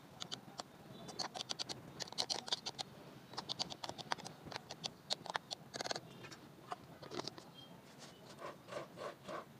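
A long metal spoon stirring sliced ginger in a plastic jar: rapid scratching and clicking of the spoon against the plastic and the ginger pieces. Later the jar's plastic screw lid is put on.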